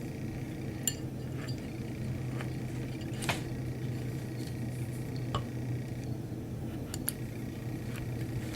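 A few small, sharp metal clicks and clinks as the pistol slide, front sight and tools are handled on the bench, over a steady low hum.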